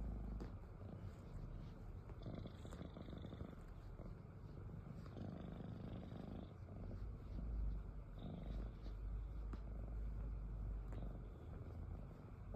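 A domestic cat snoring: a low rasp that swells with each slow breath, about every three seconds, with a faint high whistle on a few of the breaths.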